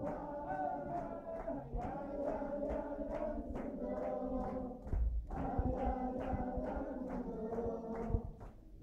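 A group of Orthodox Jewish men singing a dance tune together, with steady hand clapping about three times a second and footsteps on a tiled floor. The singing breaks off briefly about five seconds in and again near the end.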